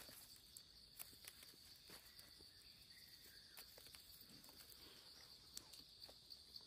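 Faint, steady high-pitched drone of insects, with scattered faint clicks and rustles.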